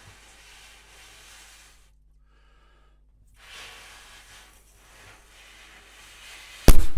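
Two stretches of soft, breathy hissing of air, then a single loud, sharp balloon pop near the end.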